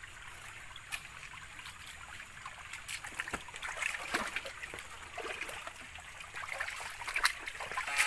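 Shallow rocky stream trickling and splashing, with scattered clicks and splashes from boots wading over wet stones.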